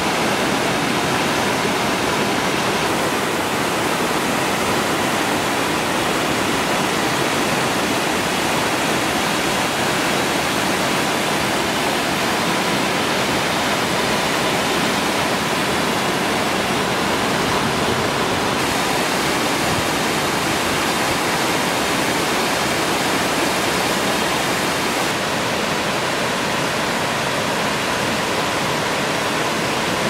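Waterfall cascading over rocks in a narrow stone-walled channel: steady, even rushing of falling water.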